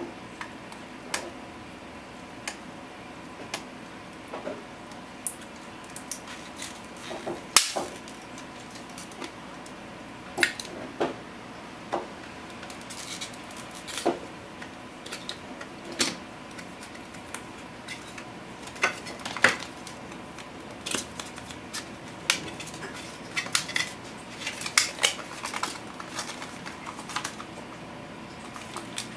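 Clear plastic iPod nano packaging and its paper insert being handled and opened: irregular clicks, taps and rustles of hard plastic, with a sharper knock about seven and a half seconds in. A faint steady high tone runs underneath.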